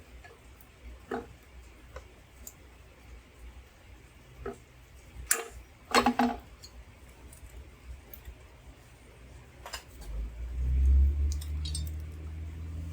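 Scattered light clicks and clinks of hand tools and metal parts being handled, with two louder sharp clacks about five and six seconds in. Near the end a low steady hum comes in.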